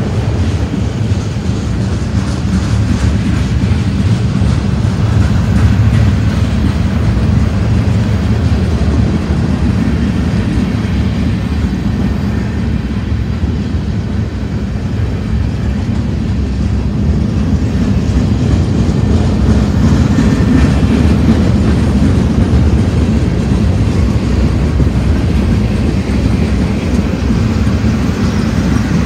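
Cars of a manifest freight train rolling past at close range: a loud, steady low rumble of steel wheels on the rails.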